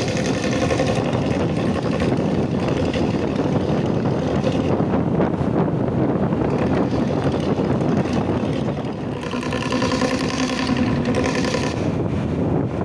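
Intercity bus with a 'ngorok' snoring exhaust running, a steady dense rumble with some pitched tones in it, with wind on the microphone.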